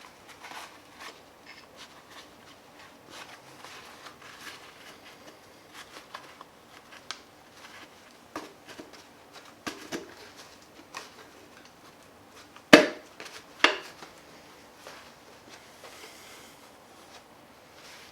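Hand tools and engine parts being handled during teardown: scattered light metallic clicks and knocks, with two sharper metal knocks about a second apart a little past the middle.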